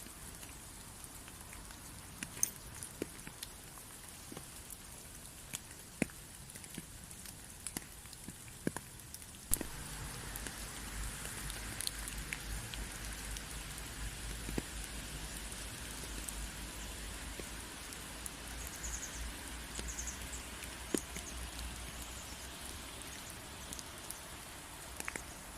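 Steady rain falling, with scattered single drops tapping sharply. About a third of the way in it grows louder, with a low rumble underneath, and eases a little near the end.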